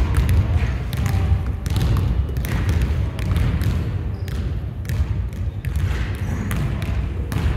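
Basketball game sounds: irregular knocks and thuds of a basketball bouncing on the court over a steady low rumble.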